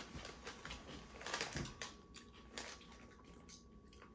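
Kettle-cooked sweet potato chips being crunched while chewed: a run of faint, irregular crisp cracks.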